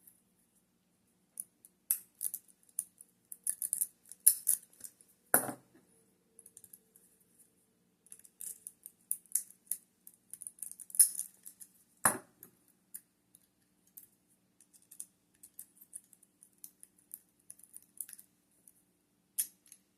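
Metal lock pick and tension wrench scraping and ticking against the pins inside a lock as it is picked, in quick irregular scratches, with two sharper knocks about five and twelve seconds in.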